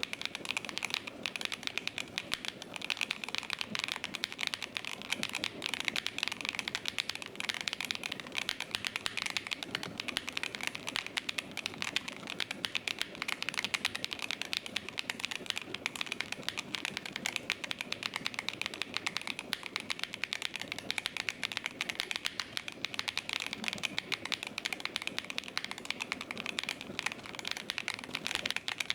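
Typing on a mechanical keyboard fitted with Gateron Sea Salt Smoothie linear switches: a continuous stream of rapid keystroke clicks.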